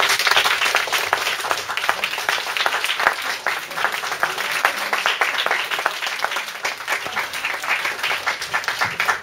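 Audience applauding: many people clapping at once in a dense, steady patter, which dies away near the end.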